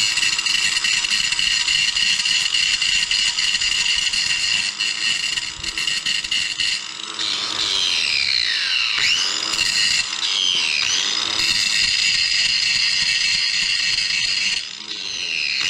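Electric angle grinder running with a steady high whine while grinding welds on a steel scooter muffler. Its pitch dips and recovers a few times around the middle as it bears on the metal, and it winds down near the end.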